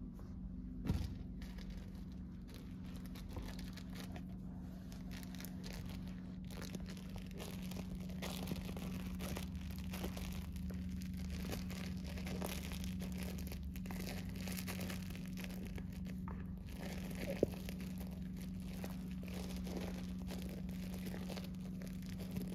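Packaging crinkling and tearing in irregular crackles, with a couple of sharper knocks, over a steady low hum.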